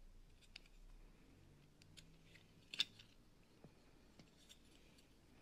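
Near silence with a few faint handling clicks from a small metal bracket with a circuit breaker mounted on it being turned over in the hand. The sharpest click comes about three seconds in.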